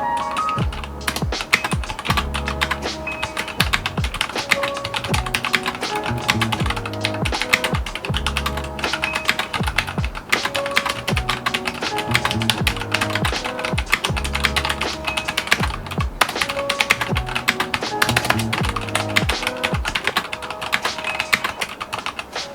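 Fast, continuous typing on a Vortexseries VX5 mechanical keyboard with Gateron Black linear switches on the letter keys: a dense stream of key clacks. Background music with bass notes plays under it.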